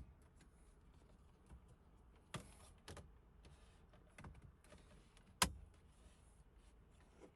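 Scattered clicks and light knocks of car dashboard trim and components being handled and fitted back in place, with one sharp, louder click about five and a half seconds in.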